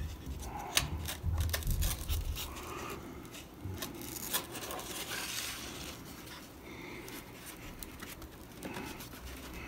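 Foam tail half being slid onto a rod spar and pressed against a plastic and foam fuselage: faint rubbing, scraping and small clicks of the parts, with a few soft low bumps in the first two seconds.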